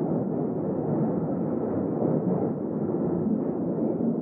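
London Underground train running: a steady, dull noise with no distinct knocks or tones.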